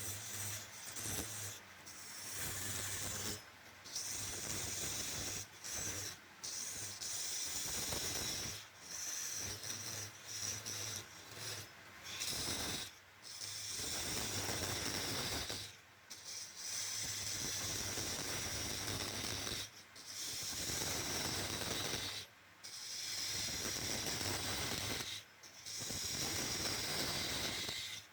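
Woodturning: a tool scraping and cutting wood on a lathe in repeated passes lasting a few seconds each, with short breaks between them.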